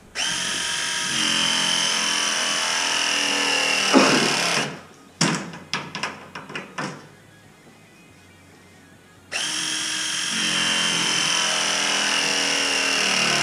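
Battery-powered copper press tool crimping press fittings onto the baseboard's copper pipe: two press cycles, the motor running steadily for about four and a half seconds each, then winding down with a falling whine. A few sharp clicks come between the two cycles as the jaws are moved to the next fitting.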